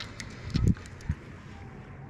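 Wind buffeting the microphone in a low rumble, with two stronger bumps about half a second and a second in, over a faint wash of lake water and a few light ticks near the start.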